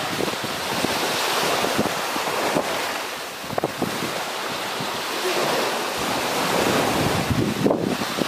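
Surf washing on a beach, with wind buffeting the microphone. Short rustles and crinkles come through as a nylon tent rainfly is pulled into place.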